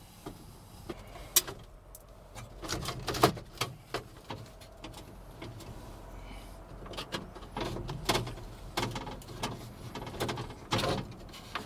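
Irregular clicks, taps and light metallic clatter of hand work under a pickup's dash: a Phillips screwdriver working out screws and a metal cover plate being handled.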